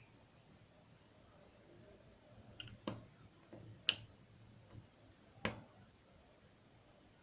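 A few sharp clicks and light taps of small hard parts being handled during work on a Huawei P8 Lite phone. There are four clicks over about three seconds, the third the loudest, with faint handling noise between them.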